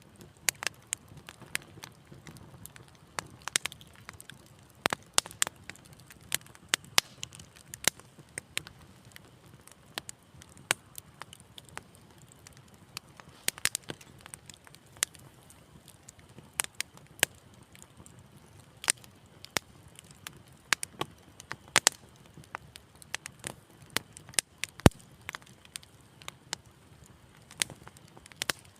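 Wood fire crackling in a fireplace: a low steady hiss with frequent sharp, irregular pops and snaps.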